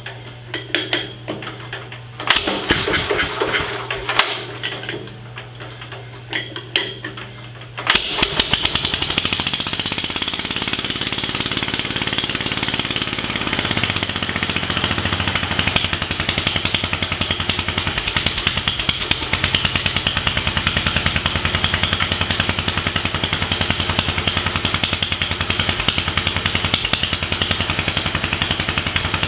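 1946 Wisconsin air-cooled engine being hand-cranked on a cold start after more than a year idle, with a few clanks, then catching about eight seconds in and running. Its speed comes down over the next few seconds and settles into a steady, even run.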